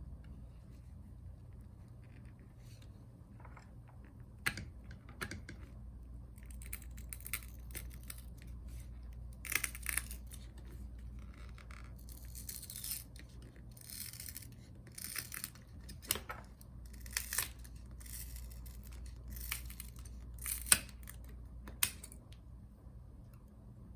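Small tools working on an opened MacBook Pro: irregular clicks, taps and short scraping rustles of parts being handled, with one sharper click near the end, over a steady low hum.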